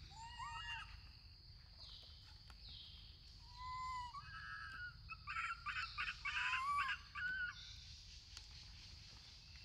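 High-pitched animal calls: a short rising call near the start, a few more after about three and a half seconds, then a loud rapid run of calls in the middle. Under them runs a steady high-pitched insect drone.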